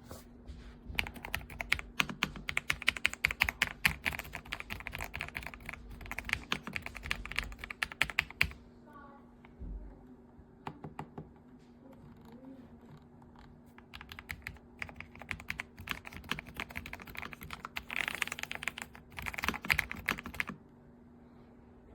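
Typing on an Epomaker Ajazz AK820 Pro gasket-mount mechanical keyboard: fast runs of key clacks, broken by a few seconds of scattered single keystrokes in the middle.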